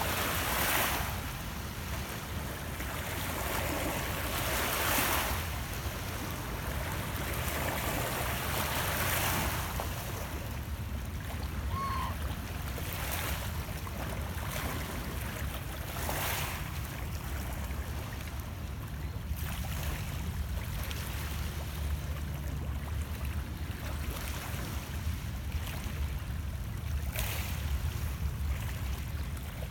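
Small lake waves lapping and splashing over shoreline rocks, swelling every few seconds, over a steady low rumble of wind.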